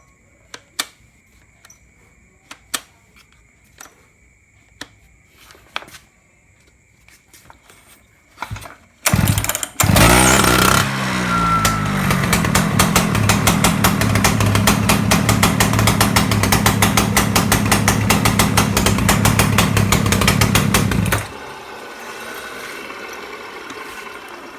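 Husqvarna petrol concrete cutter engine: a few light knocks, then it is pull-started about nine seconds in, catches, revs up and runs at speed with a fast, even firing rhythm. Near the end the sound drops suddenly to a much quieter level.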